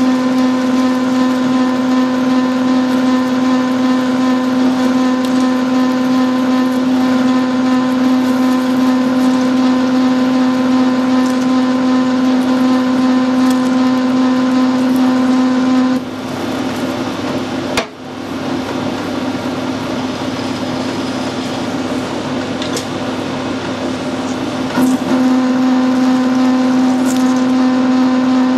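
Metal lathe turning a pin while a tool cuts a grease groove into it, giving a steady pitched hum over the machine noise. The hum drops out a little past halfway, with a sharp click in the gap, and comes back near the end.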